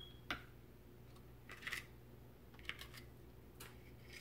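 Faint, scattered clicks and short scrapes of a plastic spoon against a plastic bowl as shaving cream is stirred into glue for slime.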